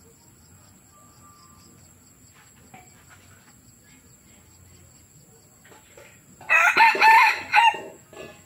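Young F1 red junglefowl cockerel crowing once near the end: a short, clipped crow of about a second and a half, with a brief faint note just after.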